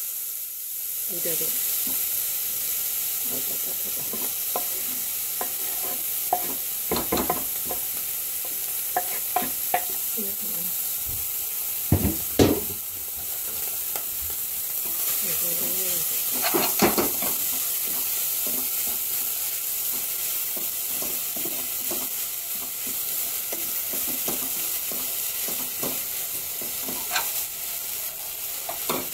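Food frying in butter in a pan, sizzling steadily while a utensil stirs and scrapes it around, the butter hot enough to be browning. A few sharper knocks of the utensil against the pan, two close together about twelve seconds in.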